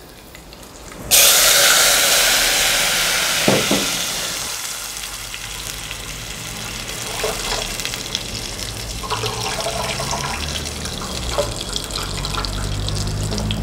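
Tamarind water poured into a pot of hot sesame oil with tempered mustard seeds: a sudden loud hiss about a second in as the liquid hits the oil and throws up steam, easing over several seconds into the steadier sound of liquid pouring into the pot. A single knock a few seconds in.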